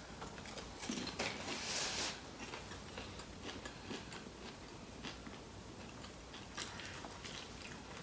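Faint crunching and chewing of candy-coated popcorn, with scattered small clicks.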